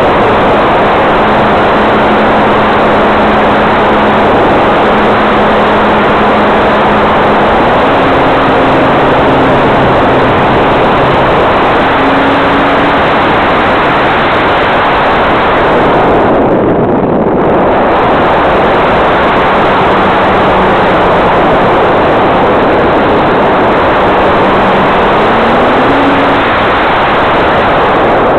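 Radio-controlled L-4 Cub model airplane in flight, heard from a camera on its wing: a loud, steady rush of air over the camera with a faint motor hum underneath that steps up in pitch about eight seconds in and again near the end as the throttle is opened.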